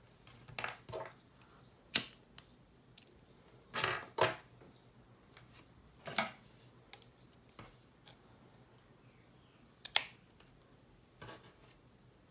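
Scattered tabletop crafting sounds: grosgrain ribbon rustling and small metal tools being handled and set down, with two sharp clicks standing out, one of them scissors cutting the ribbon.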